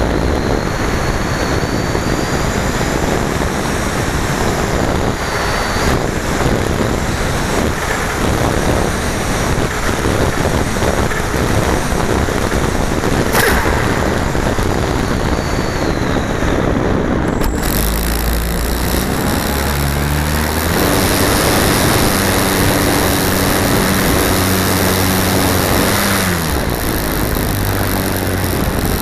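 Air rushing over a model glider's onboard camera as it glides, then about two-thirds of the way through its motor and propeller start, running with a low droning tone that steps up and down in pitch several times.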